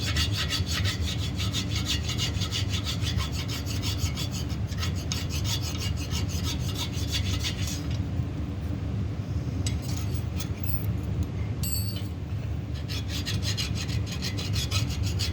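Hand file rasping in quick, even strokes across a pin on a cast-iron 350 Chevy block's water pump mounting surface, filing the pin down flush. The strokes stop about eight seconds in, leaving a few light clicks, and start again about five seconds later. A steady low hum runs underneath.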